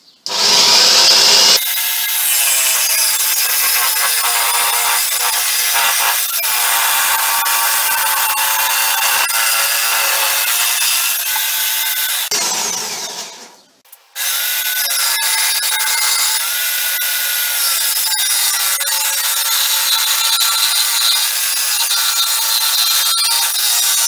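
Electric jigsaw mounted upside down under a bench table, running as a bench saw and cutting through a wooden strip, its pitch wavering as the wood is fed against the blade. It stops briefly about fourteen seconds in, then starts again.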